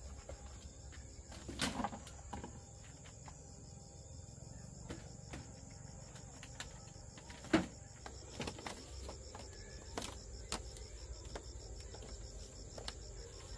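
Insects chirring steadily at a high pitch, with scattered knocks and taps, the loudest about seven and a half seconds in.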